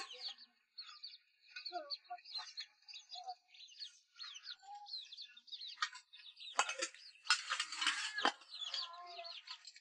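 Small birds chirping busily in quick, short, falling notes, with a few sharp knocks and clatters about two-thirds of the way through.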